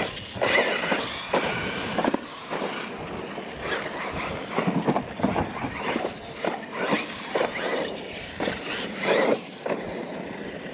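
Battery-powered Losi LMT radio-controlled monster trucks racing over dirt and ramps: electric motors and drivetrains whining, tyres scrabbling on dirt, and irregular clattering knocks as the trucks hit and land off the jumps.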